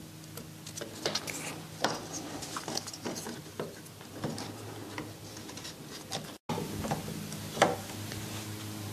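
Light, irregular wooden clicks and taps as hands handle and set down a wooden shoji lamp on a workbench, the loudest knock near the end, over a low steady hum.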